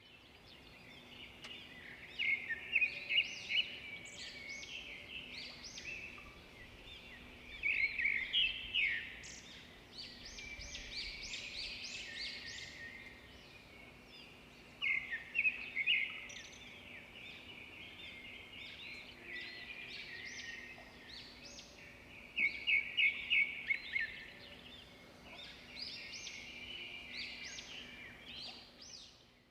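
A chorus of forest birds chirping and calling. Loud bursts of fast repeated chirps come about every seven seconds.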